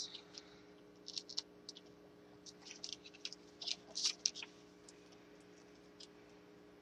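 Faint, scattered clicks and crinkles of paper handling: backing peeled off foam adhesive dimensionals and the pieces pressed onto patterned paper, with a quick cluster of clicks about four seconds in.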